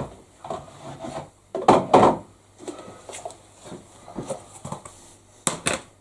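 Scattered knocks, rubbing and scraping as a plastic tub of salt is fetched and its lid taken off, with two sharp clicks near the end.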